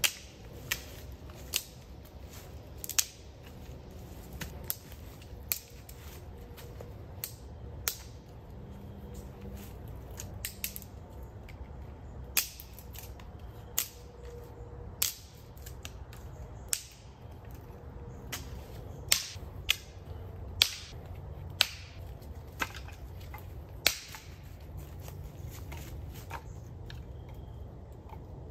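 Irregular sharp snaps and clicks, about one every second or two, with a run of louder ones in the second half, from hands-on work pitching a hot tent amid sticks and dry leaves. Under them is a faint low background.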